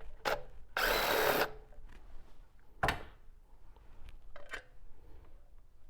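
Power driver with an E10 Torx socket spinning out a bolt in one short burst of under a second, about a second in, with a few sharp metallic clicks and knocks around it.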